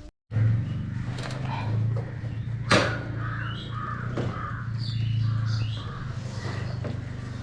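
Birds calling repeatedly in short calls over a steady low hum, with one sharp knock a little under three seconds in.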